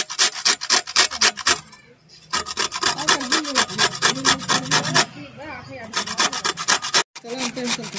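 Beetroot being grated on a stainless steel box grater resting on a steel plate: quick rasping strokes, several a second, in runs broken by short pauses about two seconds in and again about five seconds in.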